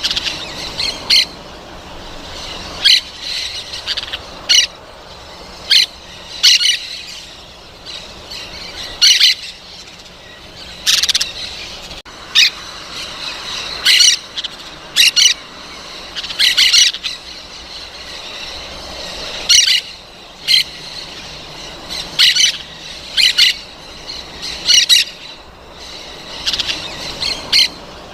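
Parrot squawking over and over: short, harsh, high calls every second or two, some in quick pairs, over softer chatter.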